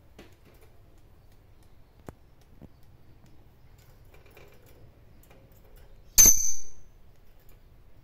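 A few faint clicks, then about six seconds in a single sharp metallic clink from a wire bird cage, ringing briefly at a high pitch.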